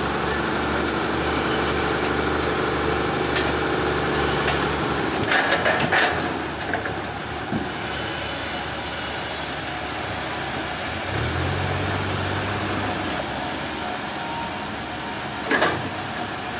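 Heavy machinery engine running steadily, its pitch rising twice as it picks up, with a few short knocks and clanks.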